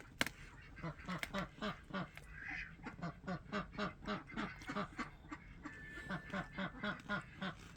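Young black Muscovy ducks giving a steady run of short, soft, low calls, about three or four a second.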